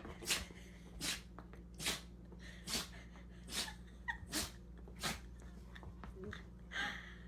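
A dog sneezing over and over: a string of short, sharp sneezes, a little under a second apart, with a brief pause before the last one near the end.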